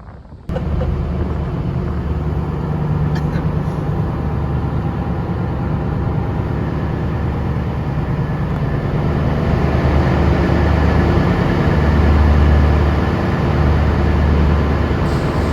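An engine running steadily with a low, even hum, like a vehicle idling or cruising.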